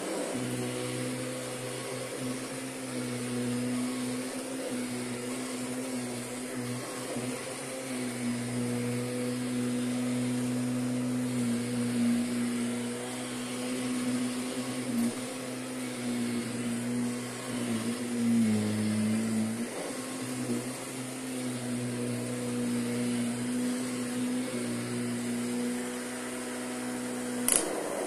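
Kirby Sentria upright vacuum cleaner running steadily as it is pushed over carpet and rugs, a constant motor hum whose pitch sags briefly about two-thirds of the way through. A single sharp click near the end.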